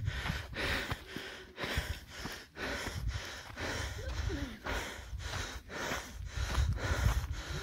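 A person panting hard in quick, rhythmic breaths, about two a second, while carrying water up a steep mountain path: the breathlessness of heavy exertion.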